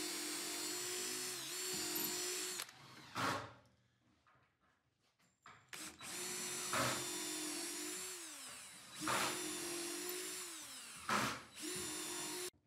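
A power drill pre-drilling pilot holes for caster screws. The motor runs in about four spans of a second or two, a few of them ending with the pitch falling as it spins down. Short, louder bursts come in between.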